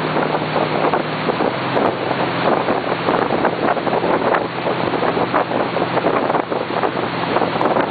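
Tow boat's engine running steadily at speed, under a loud rush of wind buffeting the microphone and the wash of the wake.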